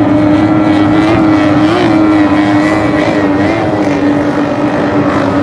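Racing boat engines running at high, steady revs: a loud, even drone with brief wobbles in pitch.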